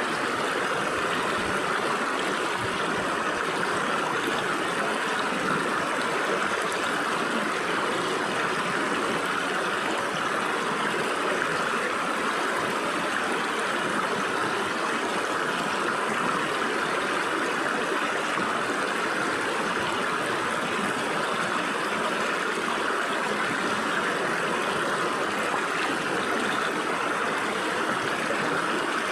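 Stream water flowing and splashing through gaps between rocks, a steady rushing with no breaks or changes.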